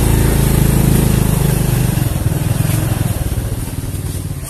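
Motorbike engine running at low speed as it hauls a loaded cargo cart, easing slightly after about two seconds.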